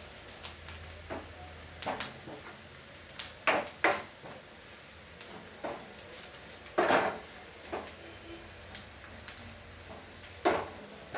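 A spatula scraping and knocking in a non-stick frying pan in short, irregular strokes as onion, coconut pieces and chilli powder are stirred and fried, over a faint steady sizzle.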